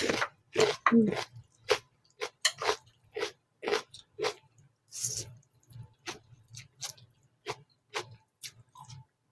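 Close-miked bite into a raw red onion, then steady crunchy chewing, about two to three chews a second.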